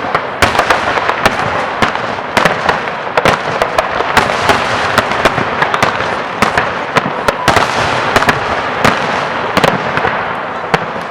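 Fireworks display: a dense, rapid run of bangs from aerial shells over continuous crackling, easing off near the end.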